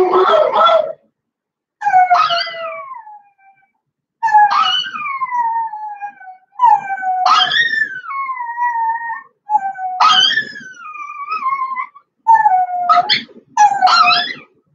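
A dog howling: a run of about six drawn-out calls, each one sliding down in pitch, with short pauses between them.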